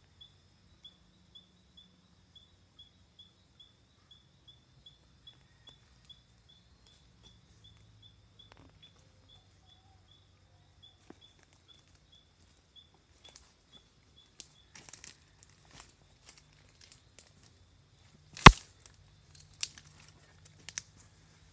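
A high chirp repeating evenly about three times a second through the first two thirds. Then the rustle and crackle of dry leaves, grass and sticks being brushed and stepped through, with one loud sharp crack a little before the end.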